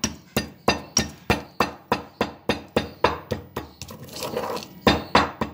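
Whole spices (black peppercorns, cloves, green and black cardamom) being pounded coarsely with a pestle in a stone mortar: steady strikes about three a second, a short break about four seconds in, then a few more strikes.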